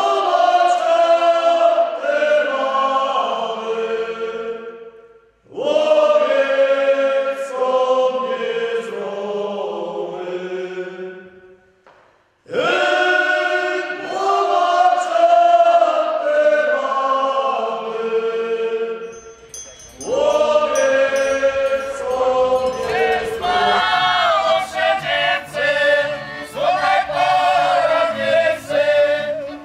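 A group of voices sings in unison in three long phrases, each ending in a fade with a brief breath before the next. About two-thirds of the way through, instruments with a quick, regular beat join the singing.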